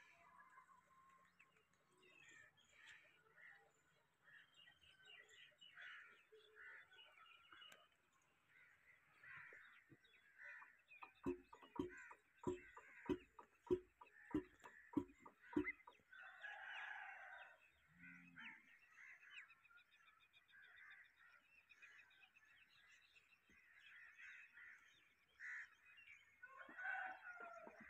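Faint bird chirps and poultry calls, with a run of about a dozen sharp metallic knocks, a little over two a second, around the middle.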